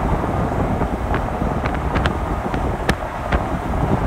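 Wind buffeting the microphone: a steady low rumble with scattered sharp clicks about once a second.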